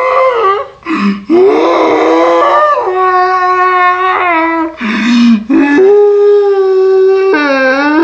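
A young girl screaming in a series of long, loud, held notes at a steady pitch, a dinosaur-like scream, with quick gasping breaths between them about a second in and again near the middle.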